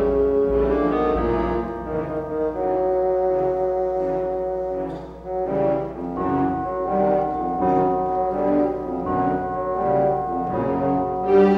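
Synthesized orchestral music with brass to the fore, a melody of held notes.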